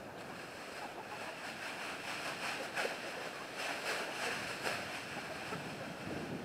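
Wind rumbling on the microphone, with a plastic bag crinkling in short bursts near the middle as salad scraps are shaken out of it.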